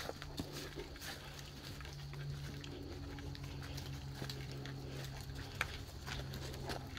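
Footsteps of a hiker and a leashed dog on a leaf-covered dirt trail, dry leaves crunching and rustling irregularly with each step. A steady low hum runs underneath.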